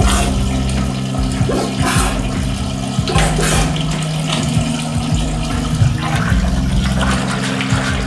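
Gurgling, rushing water with repeated splashy surges, over a steady low drone.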